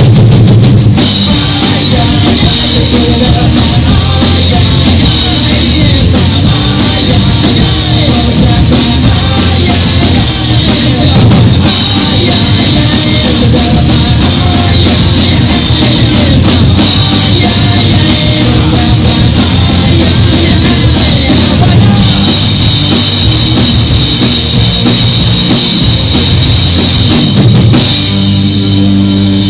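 Live punk-rock band playing loud: distorted electric guitars, bass guitar and a drum kit. Near the end the drumming stops and a low chord rings on steadily as the song ends.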